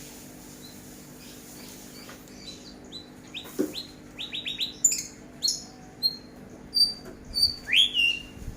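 A small songbird's chirps and whistles: scattered short chirps from about two seconds in, a quick run of falling chirps, then clear high whistled notes and one rising sweep near the end, over a faint steady hum.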